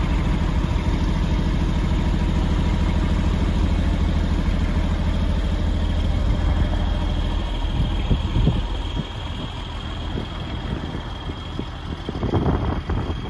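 Cummins ISM turbo-diesel straight-six of a Western Star crane truck idling steadily. The engine fades about eight seconds in, and wind on the microphone takes over.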